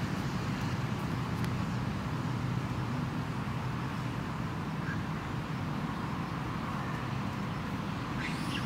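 Steady low rumble of distant motor traffic. A short bird call starts near the end.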